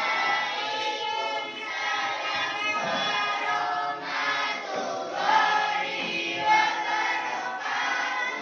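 A class of schoolchildren singing together as a group, many voices in unison, with short breaks between lines.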